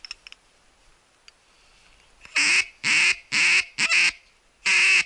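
Series of loud, harsh duck quacks close by, starting about two seconds in: a run of four or five quacks, a short pause, then another rapid run. A few faint clicks come just before.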